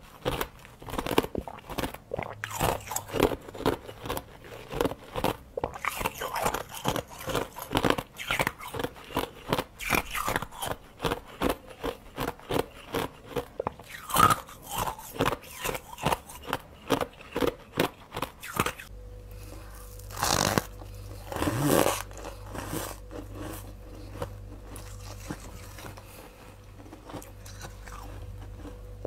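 Close-miked biting and crunching of hard ice, crisp crunches coming two to three a second. About nineteen seconds in, the sound switches to softer, sparser crunching of fluffy freezer frost over a steady low hum, with two loud bites just after the change.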